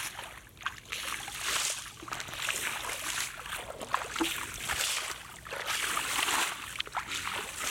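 Bare feet splashing and kicking through shallow water over grass, a repeated splash with each step, about one to two a second.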